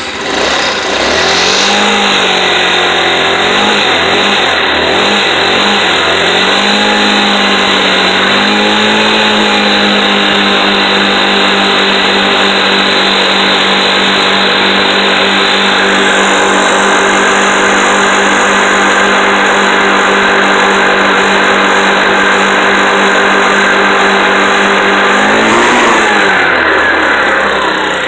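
Chinese scooter's small single-cylinder engine running. For the first several seconds the throttle is blipped and the revs rise and fall, then it holds a steady speed, with one short rev near the end.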